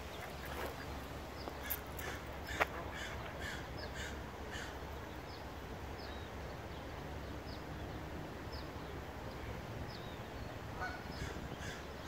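Mallard ducklings peeping in short, high, falling chirps, roughly one or two a second, with a few lower, harsher calls from about two to five seconds in and again near the end. One sharp click about two and a half seconds in is the loudest moment.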